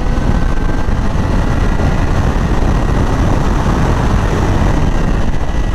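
2020 Yamaha R6 inline-four sport bike accelerating hard to overtake a car. Heavy wind rush on the helmet microphone largely covers the engine note.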